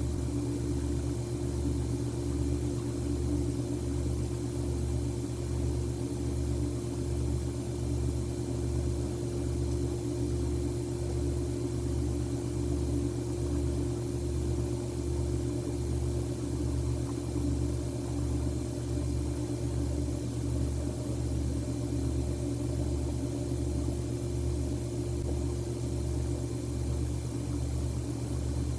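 A steady low hum with a throb that pulses about one and a half times a second, unchanged throughout.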